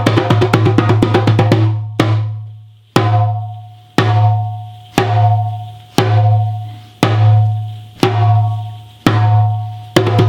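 A single drum played in a fast run of strokes, then slowing to single strokes about once a second, each ringing out with a low tone and fading away. The quick strokes start again near the end.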